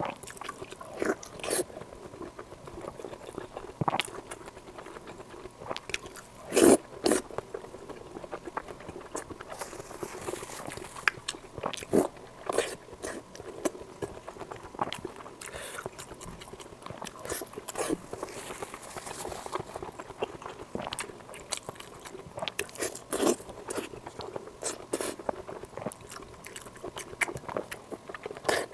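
Close-miked eating: irregular bites and chewing with short mouth clicks and smacks, a loud cluster about seven seconds in.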